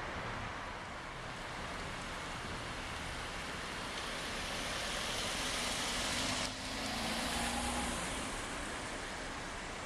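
Street traffic noise: a car passing on the road, its tyre hiss swelling to a peak a little past the middle and then fading.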